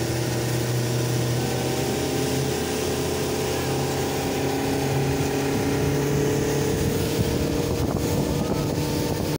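Motorboat engine running steadily under way, with the rush of water off the hull and wind on the microphone.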